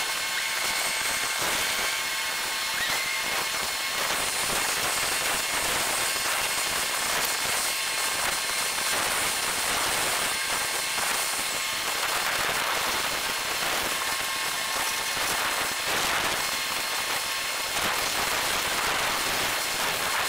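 Dense, steady crackling hiss of sped-up time-lapse ambient sound, strongest in the high range, with no single source standing out.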